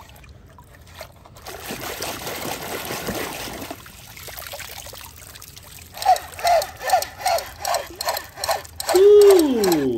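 Muddy water sloshing and splashing as a plastic toy assault rifle is swished through it to wash it. Later comes a quick run of about eight short falling electronic chirps, about three a second, then one loud falling tone near the end.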